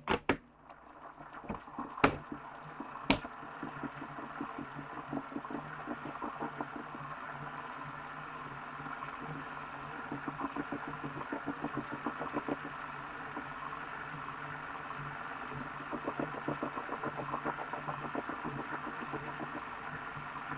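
Elite Direto XR direct-drive trainer running under pedalling, its flywheel and belt drive giving a grinding, knocking noise from the back of the unit, with a few sharp clicks in the first three seconds and loudness rising and falling in rhythmic surges. The owner suspects the belt idler pulley or a wearing drive belt, or the freehub key fit.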